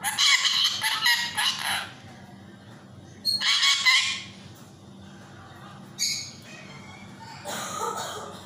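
Yellow Indian ringneck parakeet giving loud, harsh squawking calls: a run of calls in the first two seconds, another burst about three and a half seconds in, then a short call near six seconds and a weaker one near the end.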